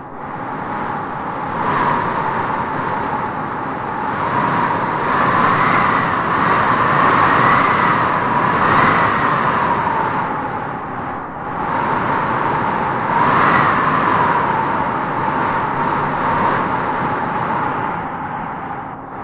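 Wind howling in gusts: a steady rushing noise with a wavering, moaning tone on top that swells and eases several times.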